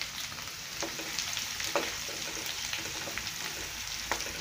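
Chopped onions sizzling in hot oil in a kadai, stirred with a spatula that scrapes and knocks against the pan now and then, one knock louder just under two seconds in.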